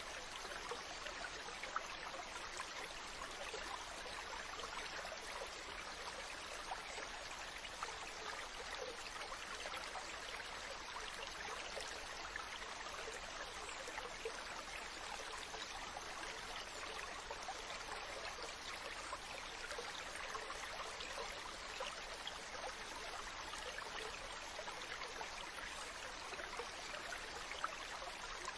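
Ocean water making a steady, even hiss full of small crackles, with no rise and fall of separate waves.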